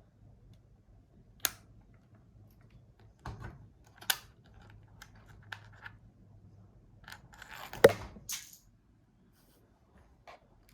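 Handling of a mechanical keyboard's packaging: a few separate sharp taps and clicks, then about a second of rustling with one loud click in it.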